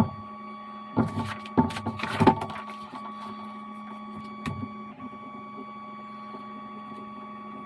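Handling sounds at a leatherwork bench: a click, then a cluster of knocks and rustles of leather pieces and tools being moved about a second in, and one more knock a couple of seconds later, over a steady machine hum.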